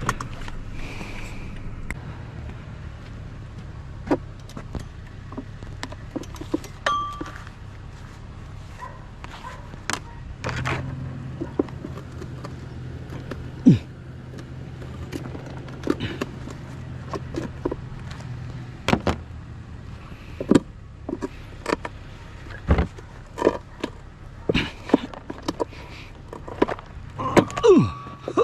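Scattered knocks and clanks of scrap being handled and pried at by hand, a part held fast by a screw, over a steady low hum.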